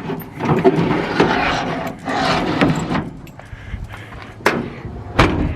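Rustling handling noise, then two sharp knocks about four and a half and five seconds in, over a low steady hum.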